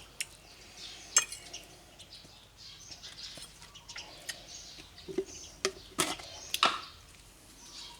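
Eating sounds: scattered small clicks and taps of utensils and mouth noises, with sharper clicks about a second in and twice around six seconds in.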